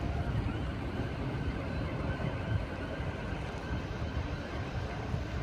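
Steady outdoor city rumble of distant traffic, with wind buffeting the microphone.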